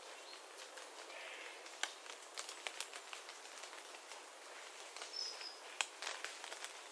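Forest after rain: water dripping irregularly from the trees onto leaves in light, scattered ticks over a soft background hiss, with a brief high bird chirp about five seconds in.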